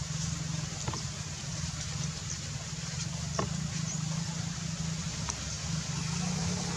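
A steady low rumble, with a few faint short chirps or ticks above it.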